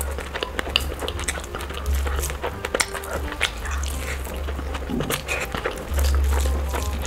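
Close-miked mouth sounds of a person eating spiced rice with her hand: chewing with many short wet clicks and smacks. Background music with a deep bass runs underneath.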